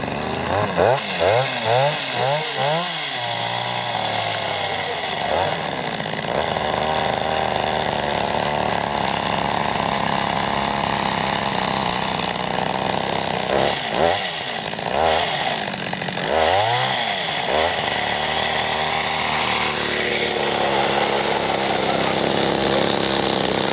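Two-stroke chainsaw engine running, revved up and down several times in quick succession in the first three seconds, then running steadily, with two more revs around the middle.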